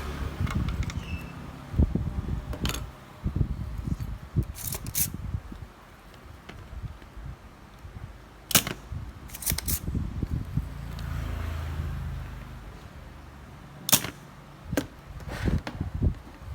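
Irregular sharp clicks and knocks, about a dozen spread unevenly, over low rumbling handling noise: tools and parts being handled during a repair.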